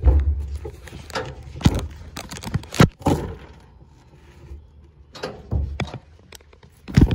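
Scattered knocks and thuds of furniture being handled and carried, the loudest near the start, just before three seconds in, and at the very end, with quieter rustling and bumping between.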